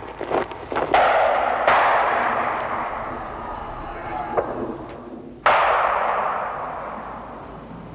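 Wartime blasts: three heavy explosions, about one second, just under two seconds and five and a half seconds in, each sudden and fading away over several seconds. A few sharp cracks of gunfire come just before the first.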